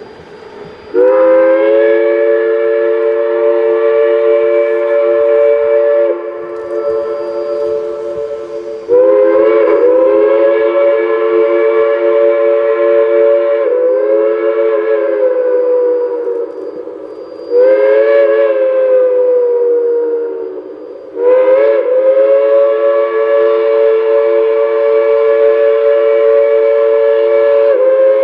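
Steam locomotive's chime whistle sounding a chord of several notes in a series of long blasts, swelling and easing between them.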